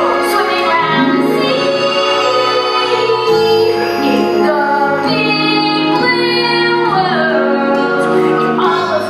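Musical theatre song: voices singing with an instrumental backing, some notes held long.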